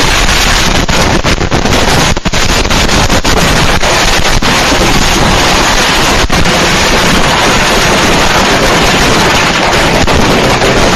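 Many firecrackers going off at once in a loud, unbroken, distorted crackle, with sharper bangs standing out now and then in the first few seconds.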